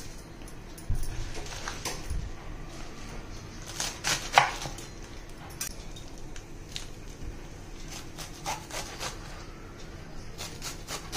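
Chef's knife chopping a bunch of radish leaves on a wooden cutting board: irregular knife strokes and knocks of the blade on the board, with a sharper knock a little over four seconds in.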